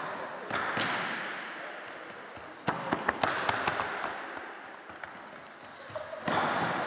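Ball and foot impacts on a sports hall's wooden floor, with several sharp slaps in quick succession about three seconds in, each ringing on in the large hall's echo.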